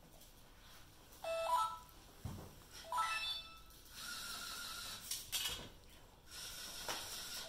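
Electronic beeps from a LEGO Mindstorms EV3 brick's small speaker: short runs of rising stepped tones twice, then longer held tones. A soft knock comes about two seconds in, and a brief clatter about five seconds in.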